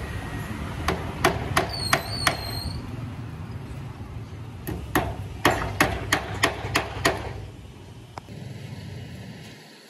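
Hammer blows in two quick runs: about five sharp strikes starting about a second in, then about eight more from about five seconds in, over a steady low background hum.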